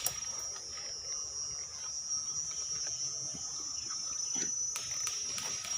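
Insects trilling in a steady, high, thin continuous tone, with a few faint scattered clicks.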